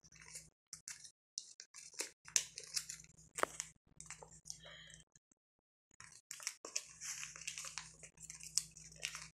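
Paper rustling and crinkling in irregular bursts as folded sheets of paper are handled and one piece is tucked under another. The sound drops out completely for about a second around five seconds in.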